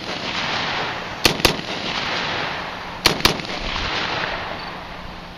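Palmetto State Armory AR-15 with a Jerry Miculek compensator firing .223/5.56 in two quick double taps, about a second in and again about three seconds in. Each pair of sharp reports is followed by an echo that fades over about a second.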